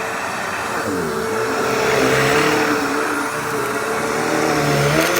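Hoover Tempo bagless upright vacuum cleaner running loudly just after being switched on: a steady motor hum with a whirring tone, its pitch dipping briefly and recovering about a second in.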